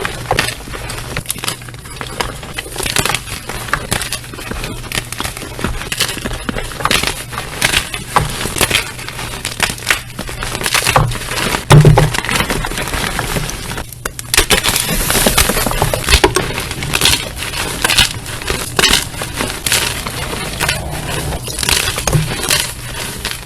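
Slime mixed with gym chalk being squeezed and kneaded by hand, giving a steady stream of crunching and crackling with many small crackles, and a louder crunch about halfway through.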